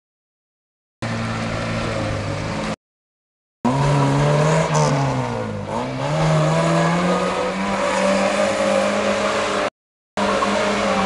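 A classic Lada saloon's four-cylinder engine is revved hard, its pitch climbing, falling and climbing again as the throttle opens and closes. The sound cuts out to silence three times, each for about a second or less.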